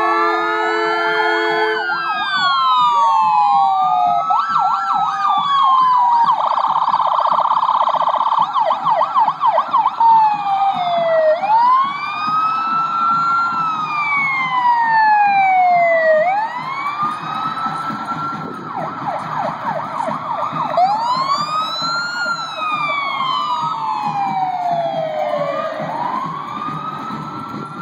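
Emergency vehicle sirens of passing fire-rescue ambulances and a fire truck, several sounding at once and overlapping: slow wails rising and falling every few seconds, broken by stretches of rapid yelp. They fade somewhat toward the end.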